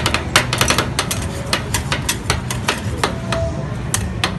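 Two metal spatulas chopping and tapping on the steel cold plate of a rolled ice cream pan: a quick, irregular clatter of sharp metallic clicks.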